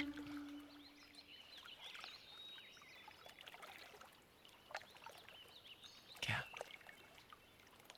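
Quiet outdoor ambience with faint, scattered bird chirps, and a brief louder sound about six seconds in.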